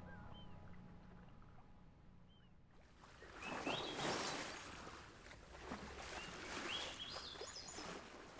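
Water washing and surging in two swells, with high chirping bird calls over it.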